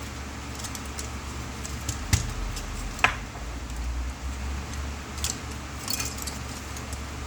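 Small clicks and clinks of tools and small parts handled at a workbench: two sharp clicks about two and three seconds in, then a few lighter ticks near the end, over a steady low hum.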